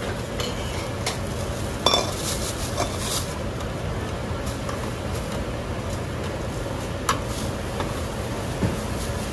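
Chopsticks stirring and turning meat in a wide, shallow metal pan of steaming sauce: a steady sizzle with sharp clinks of utensils on metal, the loudest about two seconds in and another around seven seconds.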